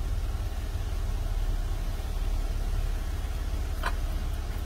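A vehicle's engine idling steadily, heard from inside the cabin with the door open. A single light click comes near the end.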